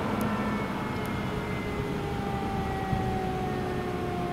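Fire engine pulling away as its siren dies out, over a low rumble of engine and traffic. A faint whine slowly falls in pitch.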